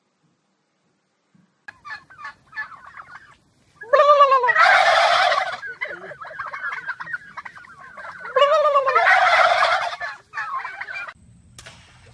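Turkey gobbling: two loud gobbles about four seconds apart, each a fast, wavering call that falls in pitch and lasts about a second and a half, with shorter, softer calls before and after them.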